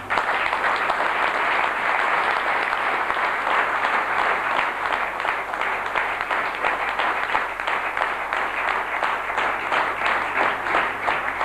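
Audience applauding, starting all at once and going on strongly, then thinning into separate claps in the last few seconds.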